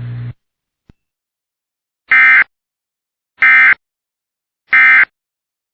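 Emergency Alert System end-of-message signal: three short, loud bursts of SAME digital data tones, evenly spaced about 1.3 seconds apart, marking the end of the alert. A steady low hum cuts off just at the start, with a faint click about a second in.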